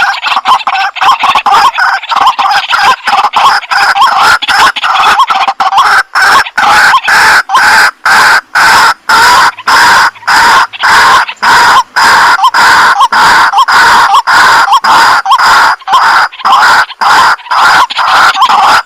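White-breasted waterhen calling loudly: harsh croaking notes repeated rapidly, a few a second, in an unbroken series.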